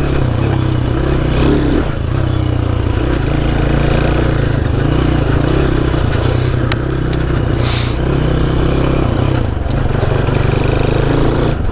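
Honda C90 step-through motorcycle's small four-stroke single-cylinder engine running under way, its revs rising and falling a little. There is a brief hiss about eight seconds in.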